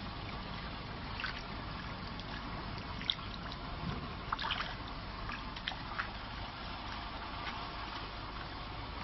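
Water splashing and trickling in a shallow goldfish vat as a hand moves through it among the fish, a scatter of small splashes over a steady watery hiss.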